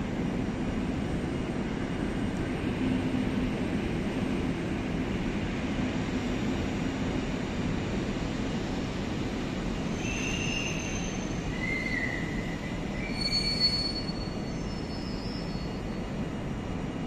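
A train running slowly over the rails with a steady low rumble. From about ten seconds in come several short, high-pitched wheel squeals at different pitches.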